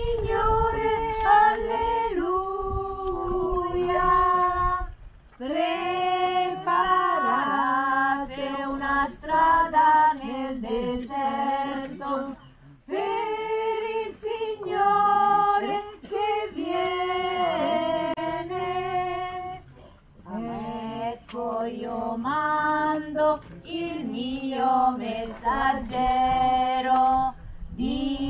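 A choir of women's voices singing a hymn in phrases of a few seconds, with short pauses for breath between them.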